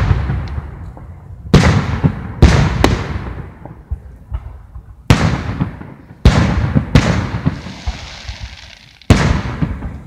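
Aerial firework shells bursting: about seven sharp booms in ten seconds, each fading out slowly.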